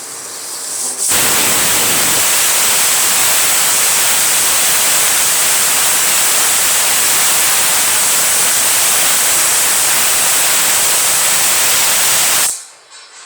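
Pressure cooker whistle blowing: steam jets from the valve in a loud, steady hiss. It builds over the first second, jumps to full strength and cuts off suddenly near the end.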